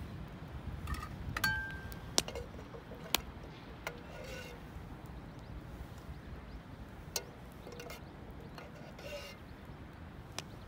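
A single ringing metal clink about one and a half seconds in, then a few sharp isolated pops spaced seconds apart, over a low steady rumble.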